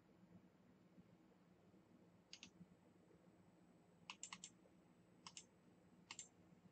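Computer mouse clicks, short and sharp: one about two seconds in, a quick run of four about four seconds in, then two quick pairs near the end.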